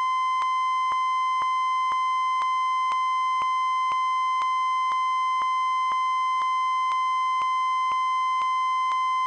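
Television test-card tone: one steady, unbroken high-pitched pure tone, with faint clicks about twice a second.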